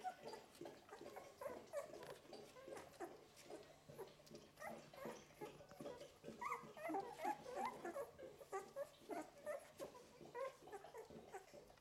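Eleven-day-old golden retriever puppies giving many short, faint squeaks and whimpers, busiest about halfway through.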